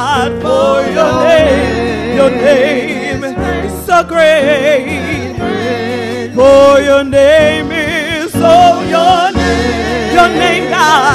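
Two women singing a gospel praise song into microphones, the lead voice in long wavering vibrato lines, over an instrumental accompaniment with a steady bass.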